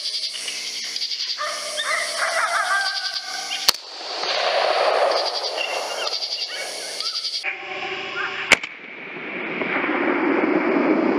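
Lucky Duck electronic predator caller playing a bleating animal distress call: wavering pitched notes over the first few seconds, then a noisier stretch. A sharp crack comes about four seconds in, and a louder single crack about eight and a half seconds in.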